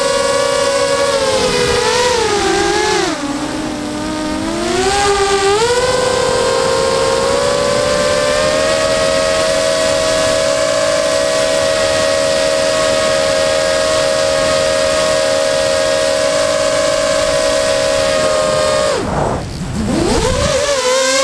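FPV quadcopter's brushless motors and propellers whining, heard from the onboard camera, the pitch rising and falling with throttle. The pitch sags for a couple of seconds early on, then holds steady and high. Near the end it drops sharply as the throttle is chopped with the craft pitched down toward the field, then climbs again as power is punched back in.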